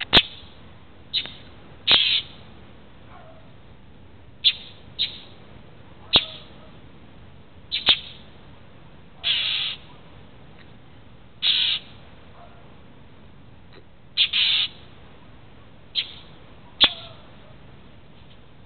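Northern mockingbird giving harsh, abrupt calls, about a dozen spaced irregularly a second or more apart, mostly short sharp notes with a few longer rasping ones. These are alarm or scold calls of the kind a mockingbird gives when harassing a cat.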